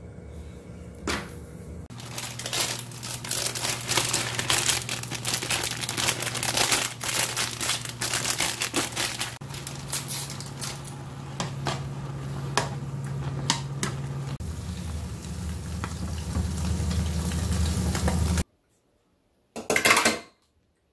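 Instant noodles boiling in a nonstick pan: a dense, crackling bubbling with a steady low hum underneath. Near the end it stops suddenly, and after a short pause comes one brief, loud crinkle of a plastic sauce sachet being torn open.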